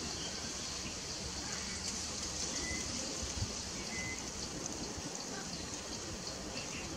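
Steady outdoor background hiss, much like running water, with a high band of short, evenly repeating pulses and a few brief faint chirps, one about two and a half seconds in and one about four seconds in.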